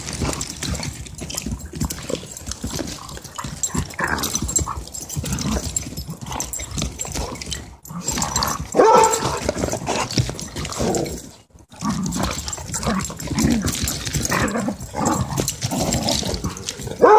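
Two dogs in rough play, growling and yipping at each other in a continuous, irregular stream of vocal sounds, loudest about nine seconds in.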